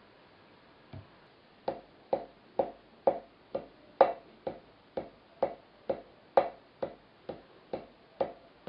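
Fingertips tapping keys on a printed paper keyboard lying on a tabletop: one faint tap about a second in, then a steady run of about fifteen sharp taps, roughly two a second.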